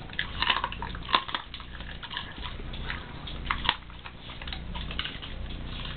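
Rottweiler chewing raw food, with irregular sharp crunches and wet clicks of the jaws, the loudest about a second in and again past the halfway point.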